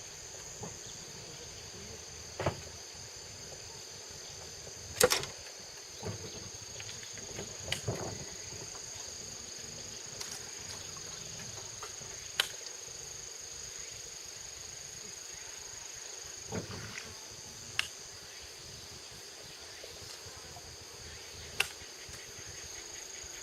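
A chorus of insects calling steadily in two high, unbroken tones, with about six short sharp clicks or knocks scattered through it.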